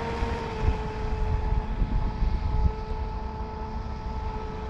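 Pro Boat UL-19 RC hydroplane's brushless electric motor whining at high speed out on the water. It is one steady high tone that grows a little fainter in the second half, with wind thumping on the microphone.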